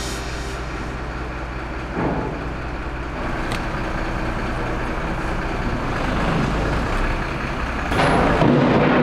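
A truck's engine running steadily with a low rumble, with a short knock about two seconds in and louder noise near the end.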